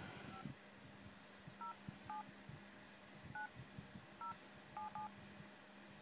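iPhone 4 keypad sounding touch-tone beeps as a phone number is dialled key by key: about seven short, faint two-note beeps at uneven gaps, with soft taps of handling underneath.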